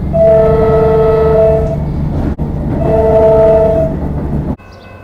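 Comeng electric suburban train's horn sounding two blasts of a steady two-note chord, the first long and the second shorter, over the loud rumble of the train running close by. The rumble cuts off suddenly near the end.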